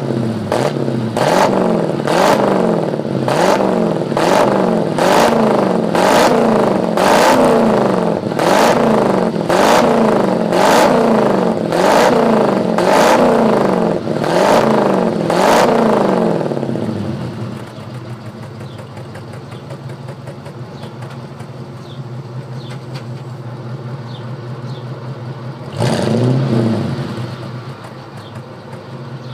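1971 Dodge Charger's 360 cubic-inch V8 heard close at the exhaust. It is revved in quick repeated blips about once a second, then drops back to a steady idle about 17 seconds in, with one more short rev near the end.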